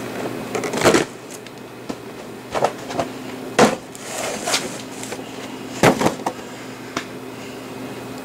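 Cardboard toy boxes with plastic display windows being shifted and set down: a string of short knocks and rustles, the strongest about a second in, in the middle and about six seconds in, over a steady background hum.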